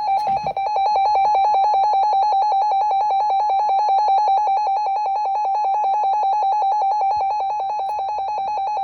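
Emergency Alert System attention signal: a loud electronic alarm tone warbling rapidly between two close pitches, held steady after a brief burst at the start. It signals that an emergency broadcast, here a tornado warning, is about to be read.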